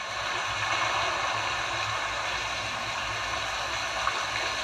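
Sound-effect recording of a water wheel played back: a steady rush of splashing, falling water.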